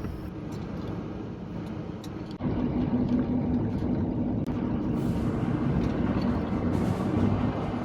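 Motor home running on the road: a steady engine hum with road noise, which jumps abruptly to a louder level about two and a half seconds in.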